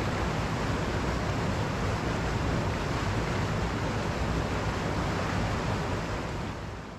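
River water rushing steadily, fading out near the end.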